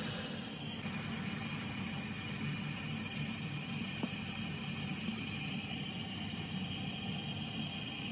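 Steady whirring hum with a hiss over it: kitchen noise during stovetop cooking. A faint click sounds about four seconds in.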